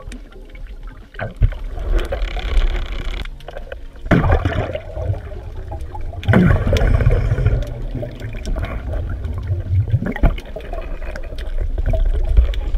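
Muffled underwater water noise heard through a waterproof camera housing: a steady low rushing with several louder surges of bubbling, the strongest about four and six seconds in.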